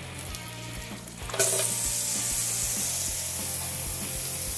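Chopped shallot going into hot olive oil in a frying pan: a loud sizzle starts suddenly about a second and a half in and carries on steadily.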